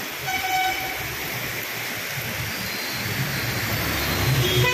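Heavy rain pouring onto flooded pavement, a steady hiss of downpour splashing on standing water. A brief tone sounds about half a second in, and a low hum swells over the last second or two.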